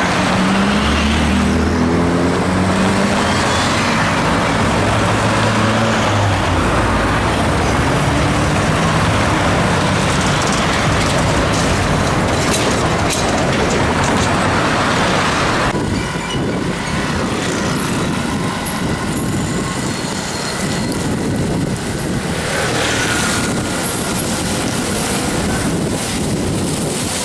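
City street traffic with a Solaris Trollino 18 articulated trolleybus with Ganz electrical equipment driving past close by. A hum rises in pitch over the first few seconds. A little past halfway the sound cuts to another, slightly quieter street's traffic, with motor scooters and an electric bus.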